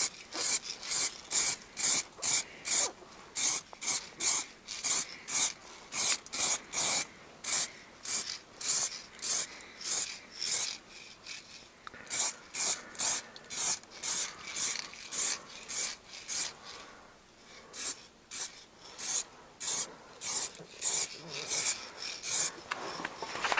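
Aerosol spray-paint can hissing in many short bursts, about two a second, with a couple of brief pauses, as a coat of paint is dusted on.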